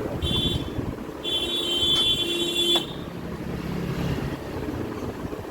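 A vehicle horn sounds twice, a short toot and then a longer one of about a second and a half, over the steady rumble of passing road traffic.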